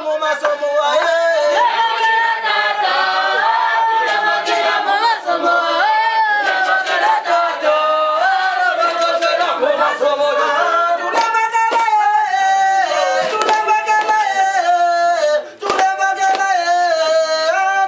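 A choir of voices singing together in harmony, unaccompanied.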